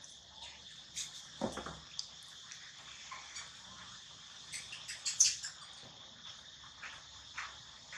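Steady high-pitched drone of insects such as crickets, with scattered short chirps and clicks over it; the loudest chirp comes about five seconds in.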